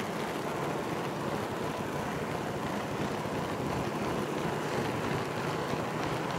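HO-scale model train car rolling along the track, picked up close from a microphone riding on the car: a steady rolling noise of small wheels on rail.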